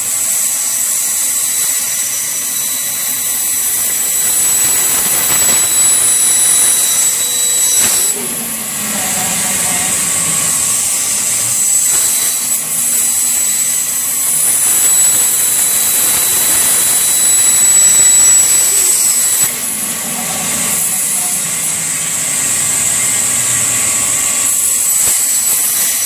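Bandsaw running with a steady high-pitched whine as its blade cuts a curved piece of wooden board, the sound dipping briefly now and then as the feed changes.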